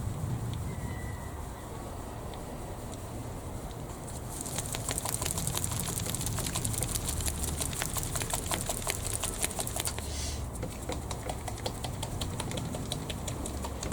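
The mixing ball rattling inside an AK acrylic paint dropper bottle as the bottle is shaken hard to mix settled paint. It is a fast, even clicking rattle that starts about four seconds in, drops off briefly near ten seconds, then resumes.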